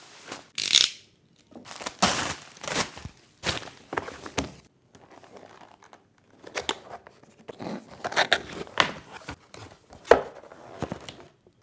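Packaging being handled and torn open: paper or plastic rustling, crinkling and tearing in irregular bursts, with short pauses between them.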